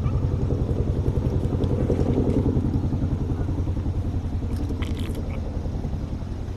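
An engine running steadily, a low even throbbing rumble with no change in speed.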